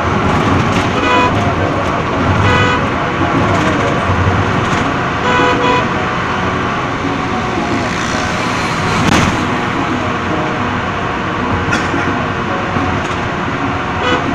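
Bus driving fast on an open road, heard from inside the cabin: a steady, loud mix of engine, tyre and wind noise. A few short horn toots sound in the first six seconds.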